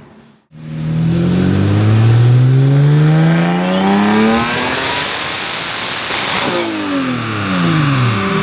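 Turbocharged Toyota 2GR 3.5-litre V6 making a full-throttle pull on a chassis dyno: the revs climb steadily for about four seconds, peak loud around six seconds in, then fall away as the throttle is lifted, settling to a steady low running note at the end.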